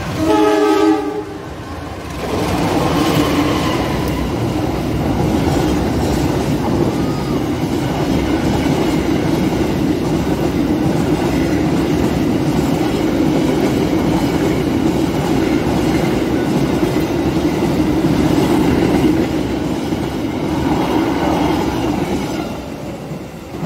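A CC201-class (GE U20C) diesel locomotive sounds its horn once, a chord of steady tones lasting just over a second, as it approaches. Then the locomotive and a long train of container flat wagons pass close by for about twenty seconds, their wheels running loudly and steadily over the rails, fading near the end as the last wagons go by.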